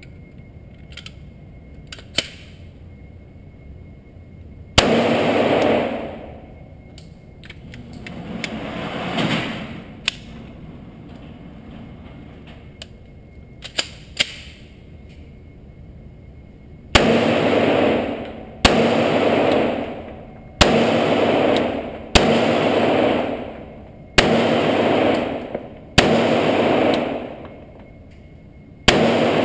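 Pistol shots in an indoor range, each followed by a long echoing tail: a single shot about five seconds in, then a slow, evenly paced string of seven shots about every two seconds in the last half, fired from a Glock 30 in .45 ACP with 230-grain ball ammunition.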